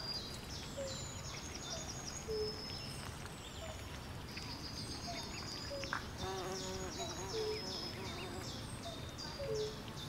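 Swamp ambience of birds and insects: runs of quick, high-pitched chirps repeat throughout over a low, steady background noise. Short low calls come back every second or so, and a fuller, deeper call sounds about six seconds in.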